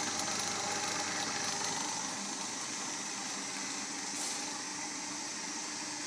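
Homemade 16-inch wooden bandsaw running under power, its electric motor turning the lower wheel through a V-belt and pulley with a steady hum and whir. No bearing noise can be heard: the axles are clamped and the bearings held by opposing retaining washers.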